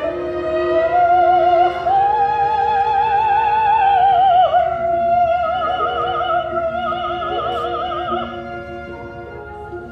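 Operatic singing over an orchestra: a high voice holds long notes with a wide vibrato, swelling about a second in and fading near the end.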